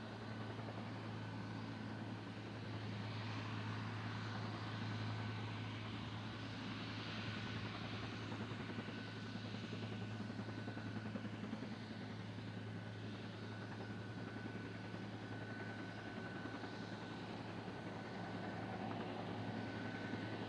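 Twin turboprop engines of a Short C-23 Sherpa running at low power while taxiing: a steady low propeller drone with a thin high turbine whine that fades in and out.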